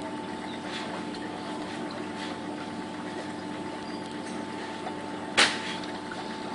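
Steady machine hum running evenly, with one sharp click about five and a half seconds in.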